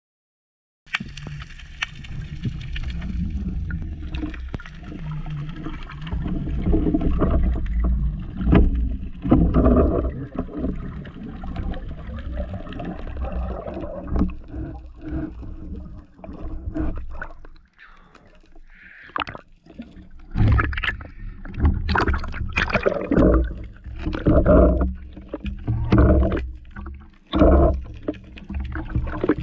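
Muffled underwater rush and gurgling of water against a camera mounted on a speargun, with knocks as the diver handles the gun and its shooting line. In the second half come a series of irregular loud surges of churning water as the diver moves near the surface.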